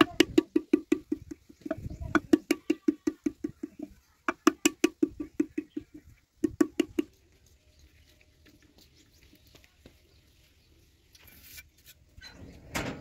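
Wooden paddle rapidly beating the wall of a clay pot, about six low pats a second in three runs with short breaks, stopping about halfway through. A brief handling noise follows near the end.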